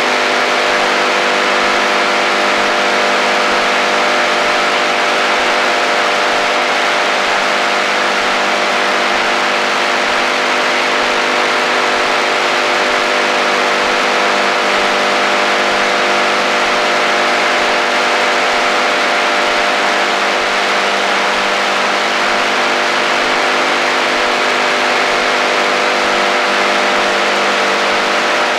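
AM shortwave radio receiver tuned into HF-band interference: a steady hiss with many steady droning tones layered through it, unchanging throughout.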